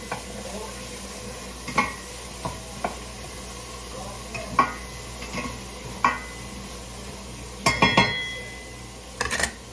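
Vegetables sizzling as they sauté in a frying pan, with a utensil stirring and knocking against the pan in scattered sharp clicks, several in quick succession about eight seconds in.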